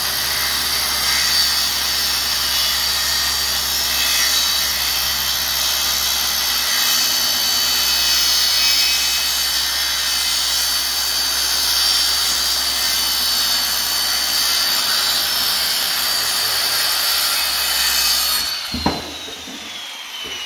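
Circular saw running through a sheet of plywood, a steady loud cut with a high motor whine. Near the end the trigger is released and the whine falls away as the blade spins down, followed by a single knock.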